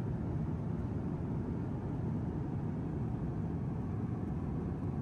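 Steady, even low rumble of an Airbus A350-900 airliner in flight, heard inside the economy cabin.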